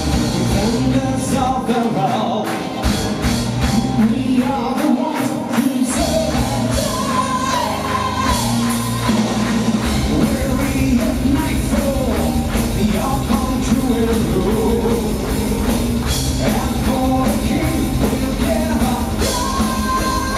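Power metal band playing live: a male lead singer over electric guitars, bass guitar and drums, heard from within the audience. The low end fills in steadily from about six seconds in.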